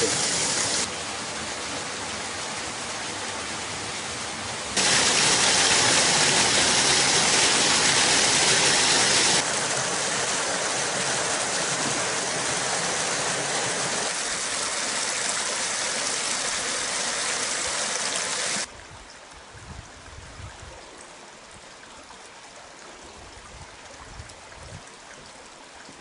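Bigăr waterfall and its creek, running thin after a long drought, with water splashing and rushing in a steady hiss. It gets louder about five seconds in, eases a little about nine seconds in, and drops to a much quieter trickle about nineteen seconds in.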